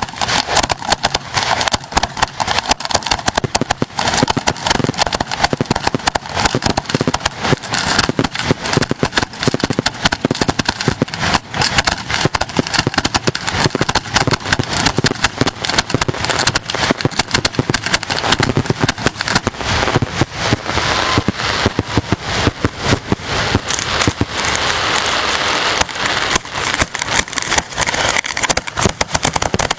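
Fireworks finale heard from close to the launch site: a continuous rapid barrage of shell launches and bursts with dense crackling, many reports a second.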